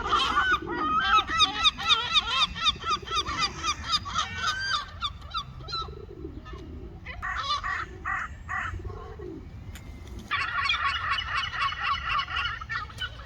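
A flock of gulls calling, many short overlapping yelping calls at once. The calling thins out in the middle and swells again about ten seconds in.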